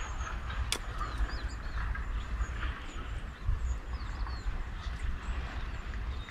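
Low, gusty rumble of wind on the microphone, with small birds giving thin, high chirps and calls scattered throughout. A single sharp click comes about three quarters of a second in.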